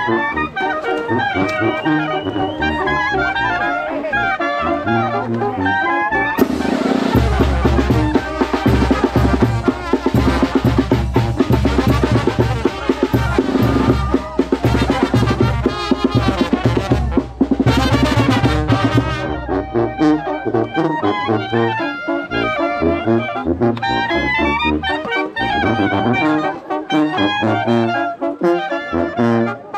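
Mexican village brass band (banda) playing, with clarinets, trumpets and trombones over a bass drum and cymbal. The music gets louder and fuller from about six seconds in until about nineteen seconds.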